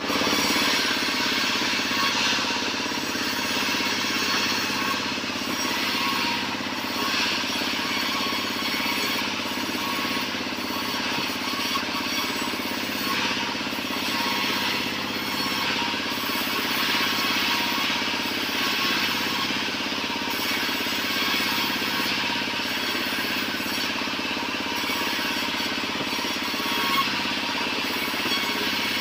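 Vertical band sawmill running steadily, its blade cutting through a wooden plank as it is fed along the table, over a constant low machine hum.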